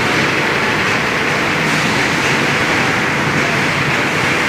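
Steady din of machinery in a wheel-rim pressing shop: a loud, even noise with a faint steady hum and no distinct strikes.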